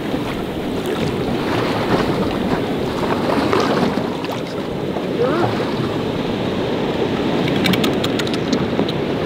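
Sea water sloshing and lapping at the side of a small boat, with wind buffeting the microphone.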